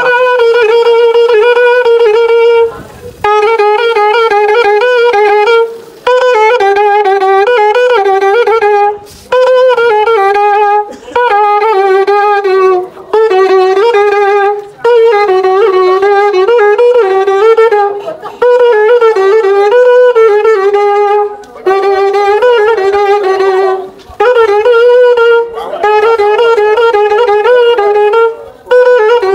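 Short hand-held wooden flute played solo in phrases of a few seconds, with brief pauses for breath between them. The notes waver and bend in pitch around a mid-range tone.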